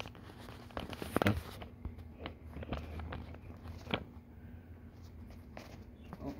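Handling noise: scattered soft clicks and knocks over a low rumble, the sharpest a little over a second in and again near four seconds.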